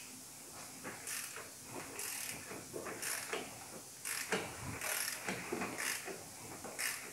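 Hand ratchet wrench turning the crankshaft of a VW 1.4 TSI engine by hand, its pawl clicking in repeated short strokes about once a second while the rebuilt timing chain is rotated to check the timing.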